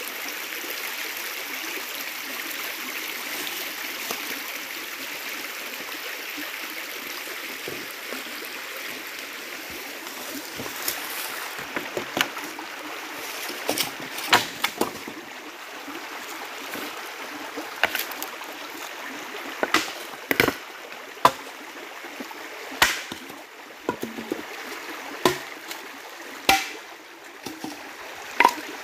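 Steady rush of stream water. From about ten seconds in it is broken by sharp, separate knocks and cracks every second or two, such as wood being handled against branches and stones.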